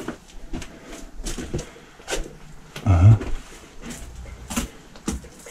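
Footsteps and scattered knocks on the old wooden floors and furniture of a house, at irregular intervals, with one louder, lower sound about three seconds in.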